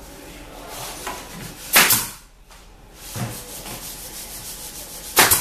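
Pneumatic pin nailer firing twice into an MDF panel, each shot a short sharp burst: one about two seconds in and another near the end.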